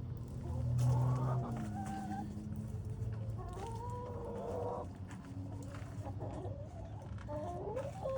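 Chickens clucking and calling, with one longer wavering call in the middle.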